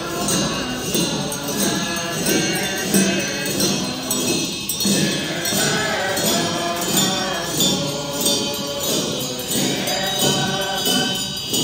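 Group of voices chanting a Tibetan Buddhist puja liturgy together in a steady rhythm.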